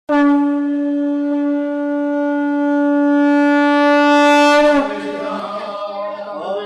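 A conch shell (shankha) blown in one long, steady note that starts abruptly and lasts nearly five seconds, growing brighter before it cuts off. Chanting then begins.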